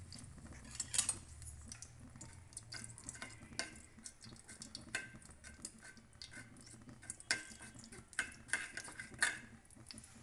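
Mustard seeds crackling in hot oil in an aluminium kadhai, with scattered sharp pops and clicks. A metal ladle stirs and scrapes against the pan. The seeds are spluttering, the sign that the oil is hot enough for tempering.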